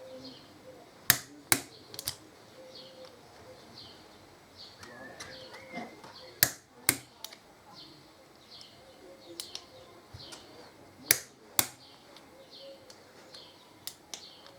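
Click-type torque wrench breaking over as the caliper bolts reach their set torque: three sharp double clicks, about five seconds apart.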